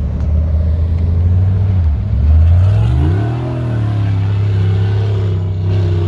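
V8 off-road vehicle engine running, revving up between about two and three seconds in and then holding at a higher, steady speed.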